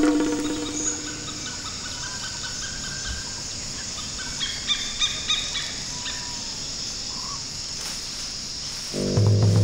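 Borneo forest ambience: a steady high-pitched insect drone with several short bird calls, and a louder pitched call at the very start. Background music comes in near the end.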